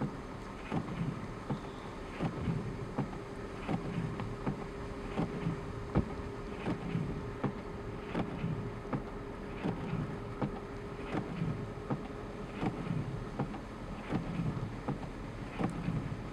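Footsteps in fresh snow at a steady walking pace, about three steps every two seconds. A faint steady hum comes in about two seconds in and stops around ten seconds.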